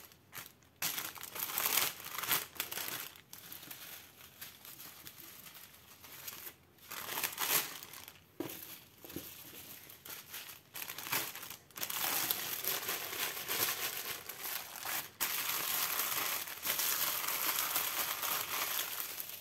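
Small plastic zip bags of diamond-painting drills crinkling as they are handled, in scattered bursts at first. About twelve seconds in, it becomes a denser, steadier rustle of plastic packaging as the bags are gathered into a plastic wrap.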